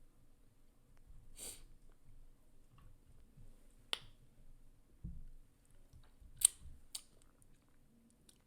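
Close-miked chewing with wet mouth smacks and a handful of sharp lip-and-tongue clicks spread through.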